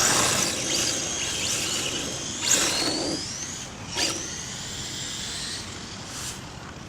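Electric motor of a 1/10 RC drift car whining up and down in pitch as it is driven and slid, over a hiss of tyre scrub. The whine jumps sharply about two and a half seconds in, with a short sharp knock about four seconds in.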